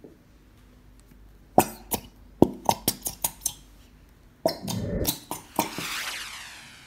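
A squeezed plastic bottle of glitter glue crackling and popping in a quick run of sharp clicks, then sputtering out air and glue in a wet, squelchy burst, followed by a fading hiss.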